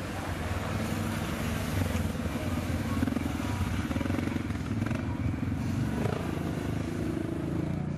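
ATV engines running with a low, continuous rumble as two four-wheelers ride past, one after the other.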